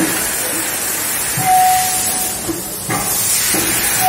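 Loud steady hiss of plastic injection-moulding workshop machinery, like air or steam venting, with a few knocks. A short whistle-like tone sounds about a second and a half in and again at the very end.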